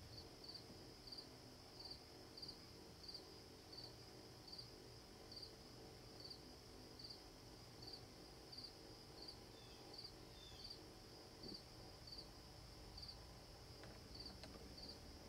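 Faint insect chirping: a steady high trill with short chirps repeating about twice a second.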